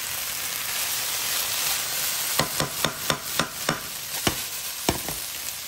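Chicken and vegetables sizzling in a frying pan. From about halfway through, a quick run of clicks and scrapes as a slotted spoon knocks against the pan while the stir-fry is stirred and folded.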